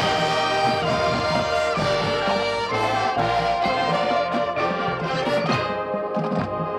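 High school marching band playing its field show: brass holding sustained chords over steady drum hits.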